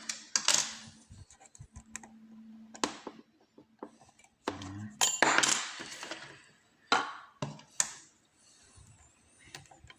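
Lock picks and a tension wrench clicking and scraping against an oval cylinder lock clamped in a vise: scattered sharp metallic clicks, with a longer rattle about five seconds in.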